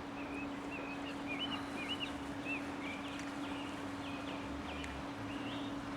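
A small bird chirping a series of short, high, hooked notes, over a steady low hum.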